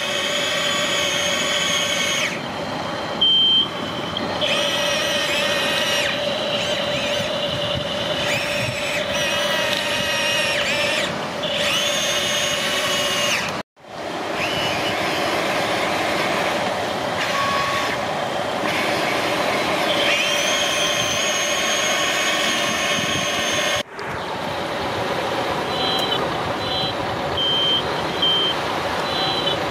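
Radio-controlled Volvo dump truck and excavator models running: a steady electric gear-motor whine, several pitches at once, that shifts in pitch as they work. Near the end come short high electronic beeps repeating, like a reversing alarm.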